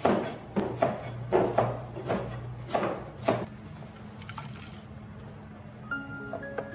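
A cleaver chopping chillies on a plastic cutting board: about nine sharp knocks, roughly two a second, that stop after about three and a half seconds. Near the end a few xylophone-like notes of background music begin.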